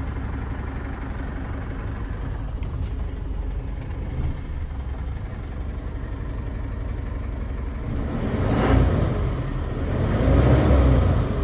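2016 DAF LF210 truck's four-cylinder diesel engine idling, heard from inside the cab, then revved up and let fall twice near the end.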